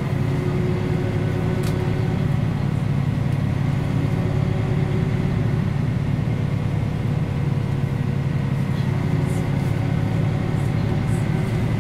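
Mercedes-Benz O 405 G articulated bus's diesel engine running steadily with a low, even hum, heard from on board, with a few faint clicks and rattles.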